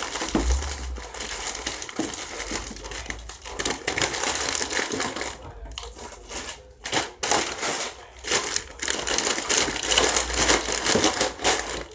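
Plastic snack wrappers crinkling and rustling as packaged snacks are handled and moved around in the box, with irregular crackles throughout and a few short pauses.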